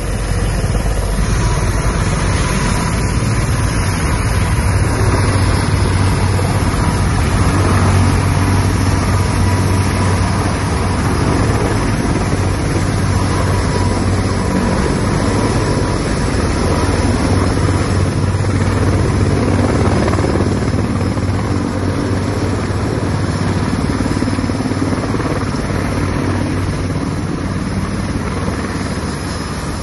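Mi-26T heavy-lift helicopter's twin turboshaft engines and eight-blade main rotor running at lifting power as it rises off the ground and hovers with a sling load. A loud, steady drone with a deep rotor hum underneath.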